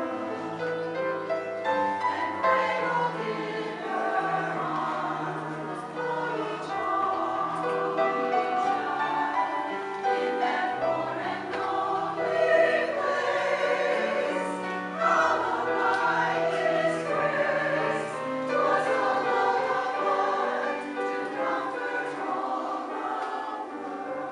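A choir singing, with sustained held notes in several voice parts.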